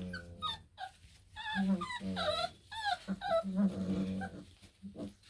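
Four-week-old Black and Tan Coonhound puppies grumbling and whining as they tussle in a pile, with many short, wavering calls, some high and whiny, some low growls.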